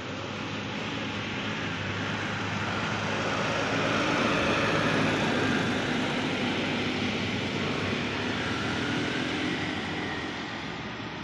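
A light diesel truck's engine running as it drives past, growing louder to its closest about halfway through and then fading as it pulls away up the road.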